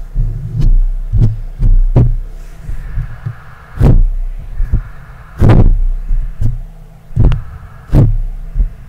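ASMR hand movements right at a Blue Yeti microphone: hands passing close to the grille push low rumbling gusts of air into it, with irregular sharp swishes, the loudest about four and five and a half seconds in.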